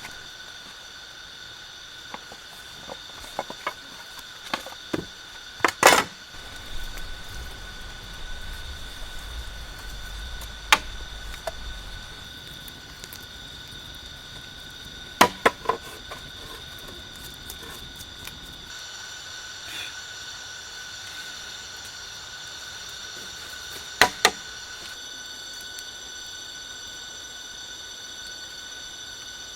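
Forest insects buzzing steadily at several high pitches, with more joining about two-thirds of the way through. Sharp knocks sound over them now and then: a cluster early on, then single knocks and pairs.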